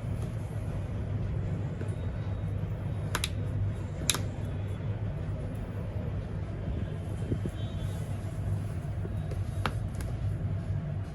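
Steady low background rumble, with three short sharp clicks about three, four and ten seconds in.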